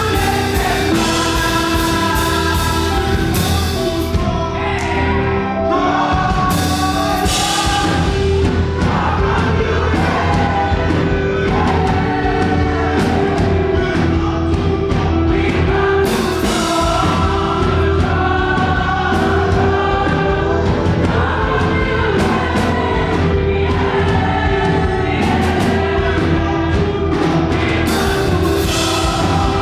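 Live gospel worship music: a group of singers singing together over a full band with a heavy bass and drums.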